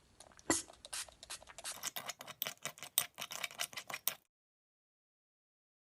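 Homemade slime being worked right after activator is added: a quick run of sticky clicks and pops, growing thicker midway. The sound then cuts off completely a little past four seconds in.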